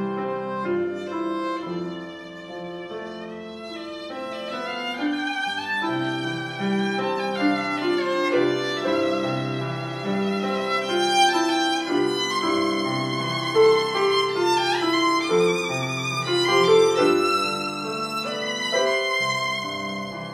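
Violin playing a melody with vibrato, accompanied by a grand piano.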